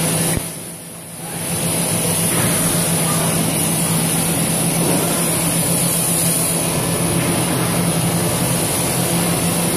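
NORFO B35 fish portioning machine running: a steady mechanical hum with a high-pitched whine above it as the conveyor carries a salmon fillet toward the scanner. The noise drops briefly about half a second in and comes back by about two seconds.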